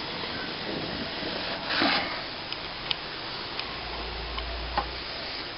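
Plastering work on a cornice: one short scrape of a tool or brush against the cornice cement just under two seconds in, then a few faint, sharp clicks and taps spread over the rest.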